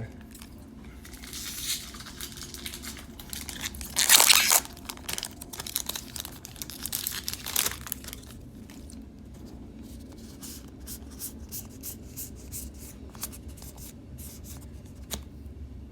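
A Magic: The Gathering booster pack's wrapper crinkled and torn open, with the loudest tear about four seconds in. Then a run of short light clicks as the cards are handled.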